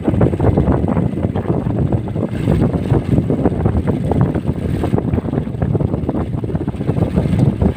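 Strong wind rumbling and buffeting against the microphone at sea, a loud, continuous, irregular roar, with waves washing around an outrigger boat.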